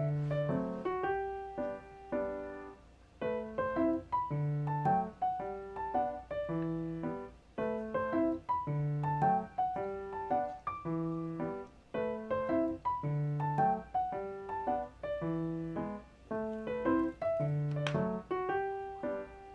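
Background music: a light piano-style keyboard tune over a bass line, repeating a short phrase about every two seconds.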